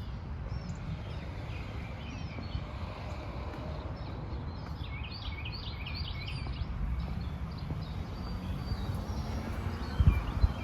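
Small birds chirping, a quick cluster of short high calls in the middle, over a steady low outdoor rumble. A couple of dull thumps near the end.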